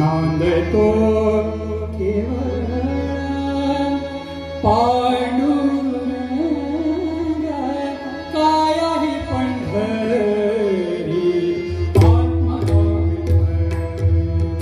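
Male classical vocalist singing a Marathi abhang in Kirana gharana style, long held notes with wavering ornaments over a steady drone. Hand-drum strokes come in about twelve seconds in.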